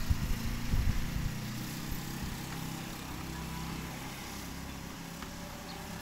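An engine running steadily with a low hum, with gusts of wind buffeting the microphone in the first second or so.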